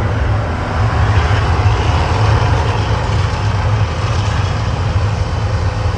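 Deep, steady, loud rumbling from the volcano show's effects, with a fainter hiss above it.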